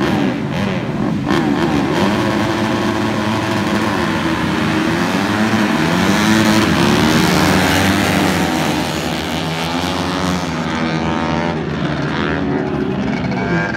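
A pack of flat-track racing motorcycles revving on the start line, then accelerating away together, many engine notes rising and overlapping. The sound thins out near the end as the pack moves away.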